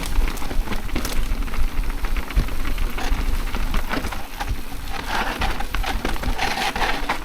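Mountain bike riding fast down a dirt trail: tyres crackling and the bike rattling over rough ground, with a steady low wind rumble on the microphone.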